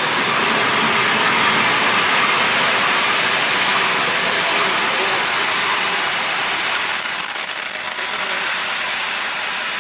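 Long-distance passenger train rolling into the platform, its carriages passing with a steady loud rushing rumble that eases a little toward the end. A thin high squeal, typical of wheels or brakes as the train slows, joins about six seconds in.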